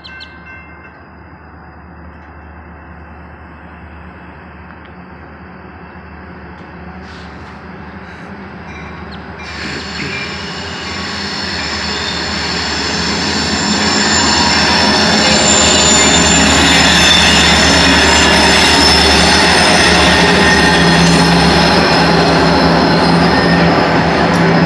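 Freight train's diesel locomotive approaching and slowly rolling up to the crossing: its rumble builds from about ten seconds in until it is loud, with a high squeal of steel wheels on the rails.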